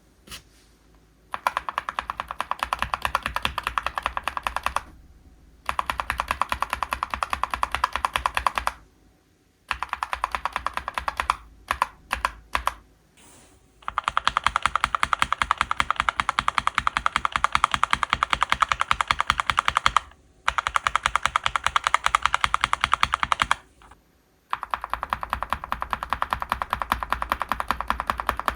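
Fast typing on a mechanical keyboard with linear switches: a dense, even patter of keystrokes in several bursts of a few seconds each, parted by short pauses, with a few single key presses near the middle.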